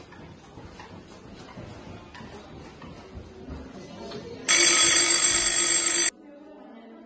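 Electric school bell ringing loudly for about a second and a half, then cutting off suddenly.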